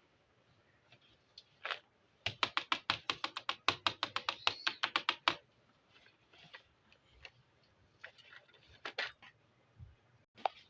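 Small plastic toy kitchen pieces clicking and tapping as they are handled: a fast run of light clicks, about eight a second, for about three seconds, then scattered single taps.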